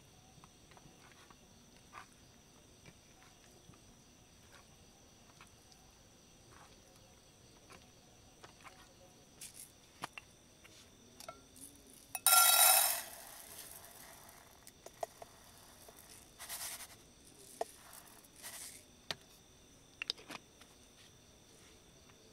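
Dry rice poured from a bottle into a lightweight metal camping pot: a short, loud rush of grains a little past halfway, with lighter rattles and clicks of handling before and after it. Insects keep up a faint steady high chirring throughout.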